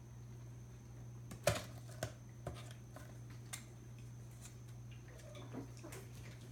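A kitten knocking and scrabbling at a small cardboard box: one sharp knock about a second and a half in, then a few lighter taps and scratches.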